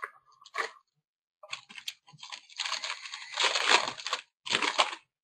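Plastic hockey card pack wrapper being torn open and crinkled, a dry rustling crackle that swells for about a second and a half, then comes once more briefly near the end.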